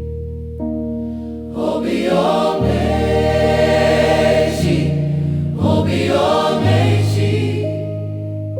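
Gospel choir singing over held instrumental chords and a sustained bass line. The voices swell up loudly twice, about a second and a half in and again about five and a half seconds in, between quieter held chords.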